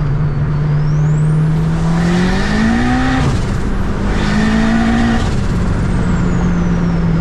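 Turbocharged K-series four-cylinder of a 2007 Honda Accord pulling hard on boost. Engine pitch climbs, drops at a quick upshift, climbs again, then settles back to a steady cruise. A high turbo whine rises with the pulls and falls away near the end.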